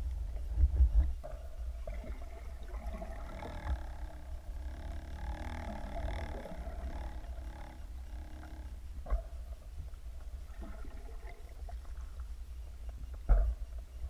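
Underwater sound picked up through a camera housing while spearfishing: a steady low rumble of water moving against the housing, with a droning pitched tone that swells in the middle and fades. Two sharp knocks come about two-thirds of the way in and near the end.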